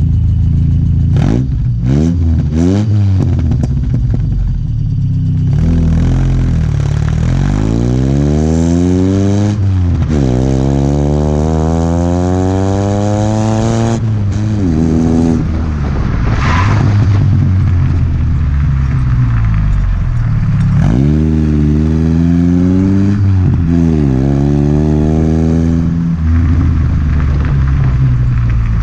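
1986 Nissan 720 pickup's engine heard through a Doug Thorley header and Blue Streak long glasspack exhaust: a few quick revs, then accelerating through the gears, the pitch climbing and dropping back sharply at each shift, several times.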